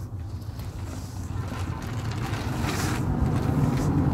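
A low rumbling noise that grows steadily louder.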